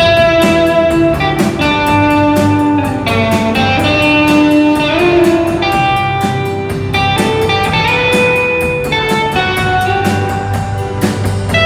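Live rock band playing without vocals: an electric guitar plays a lead line of held notes, some bent in pitch, over bass guitar and a drum kit.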